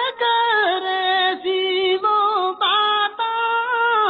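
A woman singing a Hindko folk verse unaccompanied, holding long notes that slide and waver between pitches, with short breaks between phrases.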